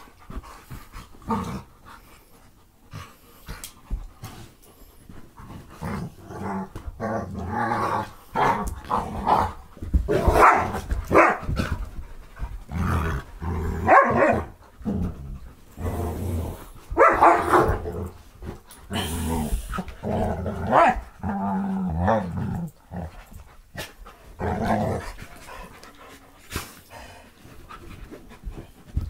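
Two dogs, a husky and a tan short-haired dog, play-fighting: irregular bursts of play growling and grumbling with an occasional bark, busiest and loudest in the middle stretch.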